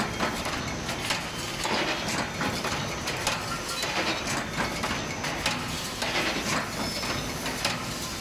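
Hinge joint field fence machine running, with repeated sharp clacks at an uneven pace of about one every half second to a second over a steady mechanical clatter.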